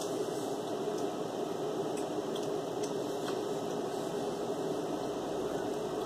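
A fan's steady hum fills the room, with a few faint clicks a couple of seconds in.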